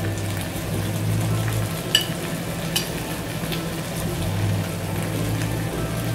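Chicken biriyani masala sizzling in the pot over a steady low hum. A spoon clicks against the pot twice, about two seconds in and again just under a second later.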